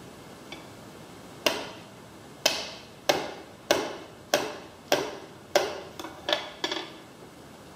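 Glass mosaic tiles being scored and snapped one after another along a line on a Sigma manual mosaic cutter: about eleven sharp clicks or cracks, roughly one every half second, coming quicker toward the end.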